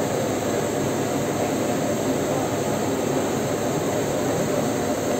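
Steady, loud mechanical roar of a print shop's background machinery or ventilation, an even drone that does not change.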